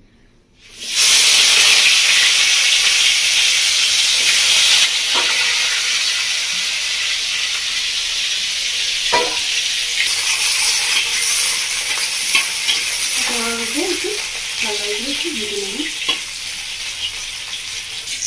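Pieces of raw green plantain, still wet from soaking, dropped into hot oil in a hammered brass kadai. They set off a sudden loud sizzle about a second in, which settles into a steady frying hiss, with a few light knocks of the spatula against the pan.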